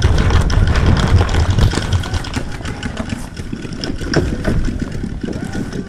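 Wind and handling rumble on a moving paintball player's camera microphone, heaviest in the first two seconds, with irregular clicks and knocks throughout.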